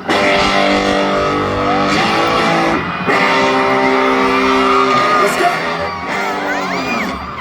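Music with guitar: the instrumental start of a song, held chords changing every second or so.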